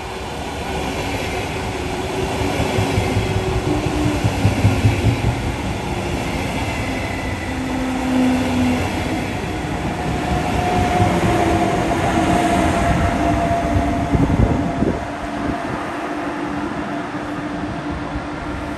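Electric passenger train of double-deck coaches with an EU47 (Bombardier TRAXX) electric locomotive at the rear, running past along the platform: continuous rumbling of wheels on rails, with steady humming tones that come and go. A single knock sounds about 15 seconds in.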